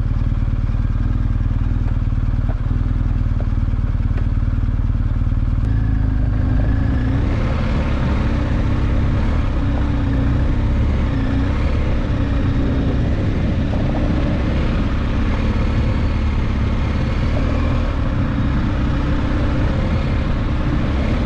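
Motorcycle engine idling, then pulling away about six seconds in and running along a rough dirt road.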